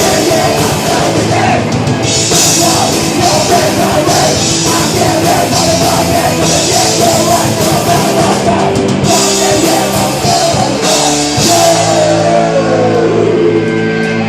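Live heavy rock band playing loud, with drum kit, distorted guitars and some vocals. About eleven seconds in the drums stop and held notes ring on.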